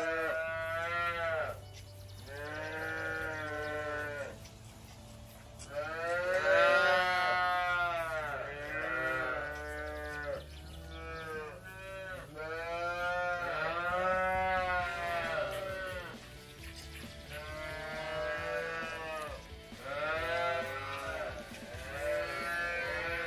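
Young dairy calves bawling at feeding time, about a dozen drawn-out calls one after another, each rising and then falling in pitch.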